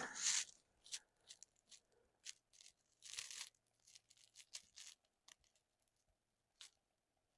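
Near quiet, with a few faint scattered rustles and soft clicks from the shooter settling behind the rifle while aiming.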